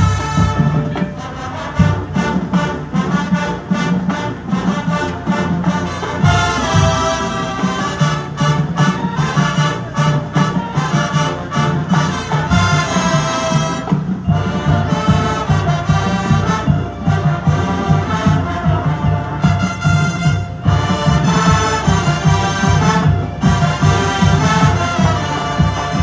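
High school marching band playing its field show: brass ensemble with drumline and front-ensemble percussion, punctuated by sharp percussion hits.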